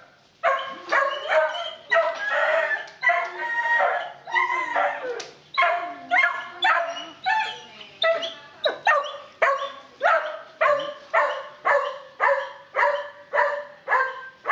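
A dog barking and yelping in excited greeting: the first half is a jumble of high, pitch-bending yowls and whines, then it settles into a steady run of short high barks about two a second.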